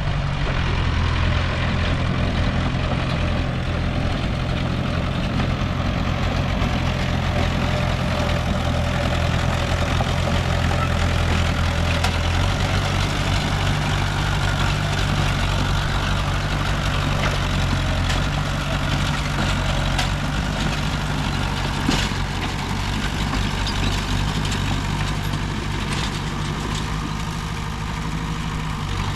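Diesel engine of a D20P crawler bulldozer running steadily, its low engine note shifting about a third of the way through. One sharp knock near the end.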